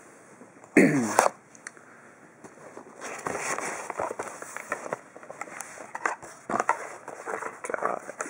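Cardboard box being handled and opened: a short, loud scrape about a second in, then irregular rustling, taps and crinkling of cardboard and paper.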